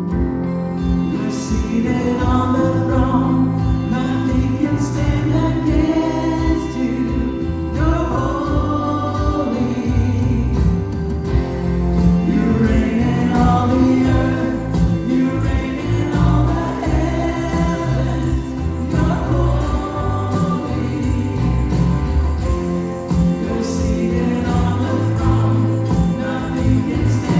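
Gospel worship music: a choir singing over instrumental backing with a strong, steady bass.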